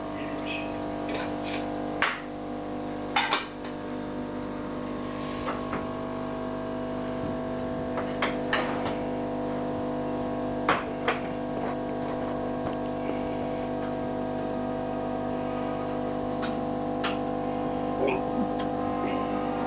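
Aquarium air pump humming steadily at a fixed pitch, with a few sharp clicks scattered through it.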